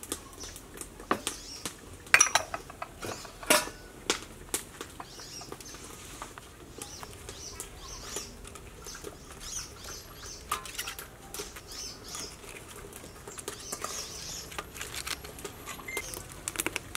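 Fresh lettuce leaves being handled and laid on a metal tray, giving crisp rustling with irregular light clicks and taps.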